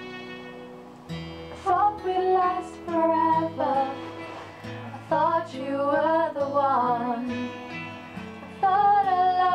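Female voices singing a slow ballad over strummed acoustic guitar; a new guitar chord comes in about a second in and the singing begins just after.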